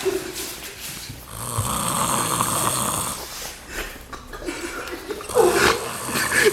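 A sleeping person snoring, with one long snore lasting about two seconds, starting about a second in. The snoring carries on through a slap prank.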